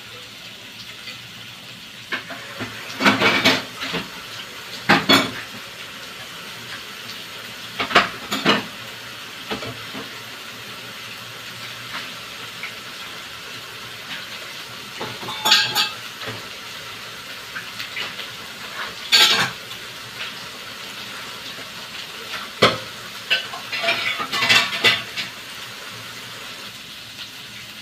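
Fish cake and mushroom cake frying in an aluminium wok over a gas flame: a steady sizzle with sharp cracks every few seconds.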